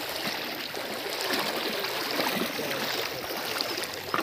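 River water flowing steadily, a continuous rushing wash.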